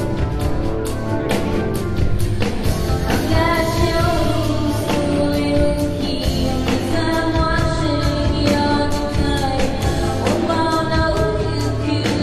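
Live band performance with a woman singing lead. Her voice comes in about three seconds in and holds long notes in phrases over steady drum hits and a bass line.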